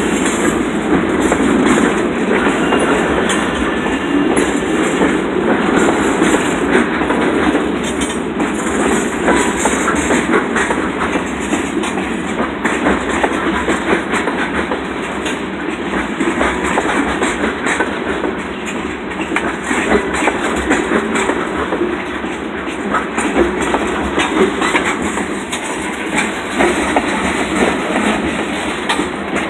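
Freight train cars, boxcars then tank cars, rolling steadily past, their wheels clicking and clattering over the rail joints with a constant rumble.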